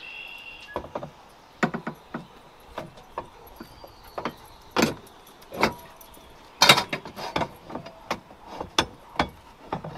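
Steel tube sleeve being slid along a steel harness bar and worked into place: irregular metal clinks and knocks, with a brief squeak at the start.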